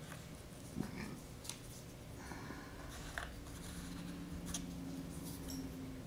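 Light, scattered clicks and taps of small wooden popsicle sticks being handled and set down on a foam mold, over a faint steady hum.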